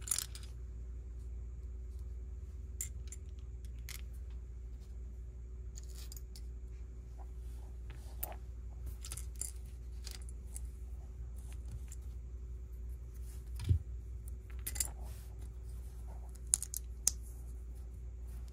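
Plastic Lego pieces being handled and snapped together: scattered small clicks and rattles, with a dull knock a little past the middle.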